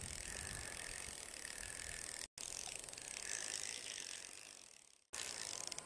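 Spinning reel being cranked, a faint steady whirr of its gears as line is retrieved. The sound drops out briefly about two seconds in and fades away near the end.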